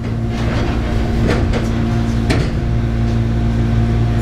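Shizuoka Railway 1000 series electric train standing still, heard from the cab: a steady hum from its onboard equipment, with a couple of sharp clicks.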